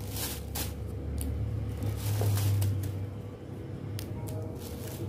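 Light rustles and clicks of fresh chilies and a plastic food container being handled, a few short separate sounds over a steady low rumble that swells briefly in the middle.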